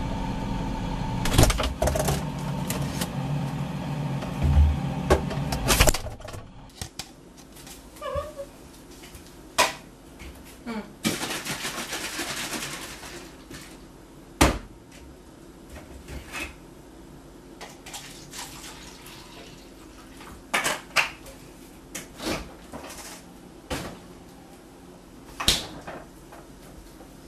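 Kitchen counter handling sounds: scattered knocks and clinks of a bottle and cup being moved about, with about two seconds of rushing noise a little before the middle. A steady hum runs through the first six seconds and cuts off suddenly.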